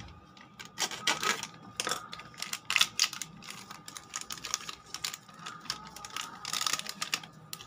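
Crinkling and crackling of a foil spice sachet as it is handled and shaken to pour biryani masala powder, in quick irregular crackles.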